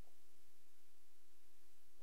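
A steady hum on a single tone over faint hiss, with no other sound.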